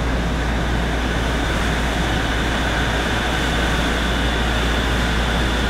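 Steady low hum with a faint high whine from a Shonan Monorail suspended car standing still, its onboard equipment running, heard inside the driver's cab.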